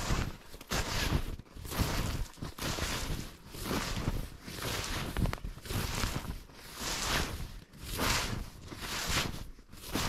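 Footsteps crunching through deep snow at a steady walking pace, about three steps every two seconds.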